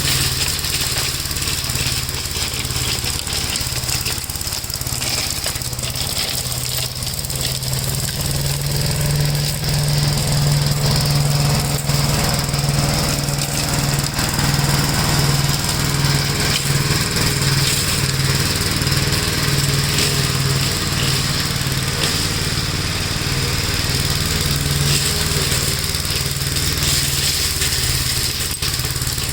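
A Gravely walk-behind tractor's single-cylinder engine running steadily, with an even, pulsing beat.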